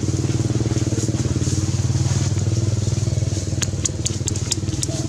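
An engine running steadily with a fast, even throb. Several sharp clicks come in over it near the end.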